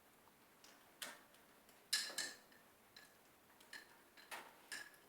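Irregular sharp clicks and light taps on a hard object, a few at a time, starting about a second in.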